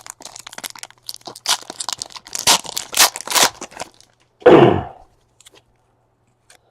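Foil and plastic packaging of trading-card packs being torn open and crinkled by hand, in quick rough rips for about four seconds. A single brief loud, lower sound follows about four and a half seconds in.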